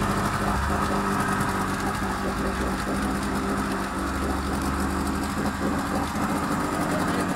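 A 20 hp Mercury two-stroke outboard motor idling steadily.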